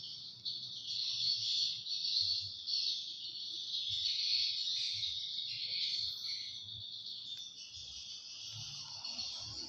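Steady, high-pitched chirring of an insect chorus, a dense unbroken buzz.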